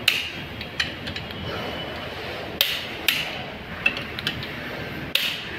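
Socket tools on the crankshaft main-bearing cap bolts of a Mahindra XUV500 engine block as the bolts are tightened. About six sharp metallic clicks come at irregular intervals, each with a short ring.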